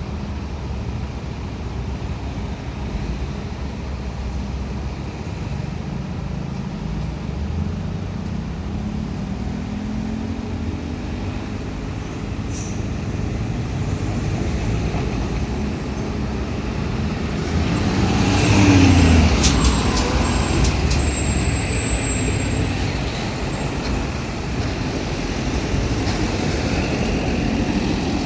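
Diesel locomotive running light, with no wagons attached, on a freight line: its engine runs steadily, climbs in pitch partway through, and is loudest as it passes close about two-thirds of the way in, its pitch then dropping away.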